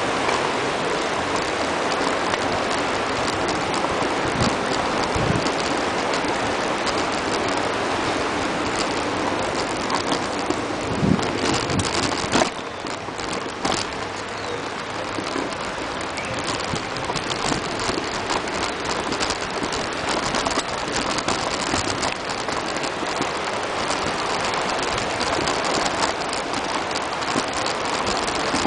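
Steady rushing of a swollen river in flood, dropping a little about halfway through.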